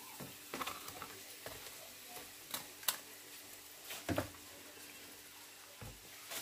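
Cracker frying in a pan of hot oil with a faint, steady sizzle, while a metal slotted spatula and chopsticks click and scrape against the pan several times.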